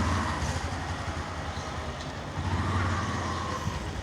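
A motor vehicle running steadily, a low engine hum under a rushing noise, growing a little louder about two and a half seconds in.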